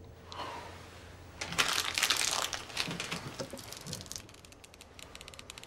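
A shiny plastic snack wrapper being crumpled, crackling loudly for a couple of seconds, followed by a run of faint fine crackles near the end.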